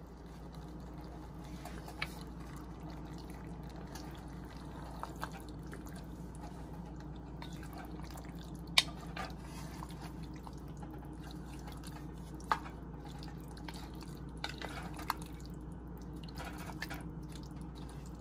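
Wooden spoon stirring a chunky okra and tomato stew in an enamelled pot: soft wet squelches and a few scattered knocks of the spoon against the pot, the sharpest a little under halfway through, over a steady low hum.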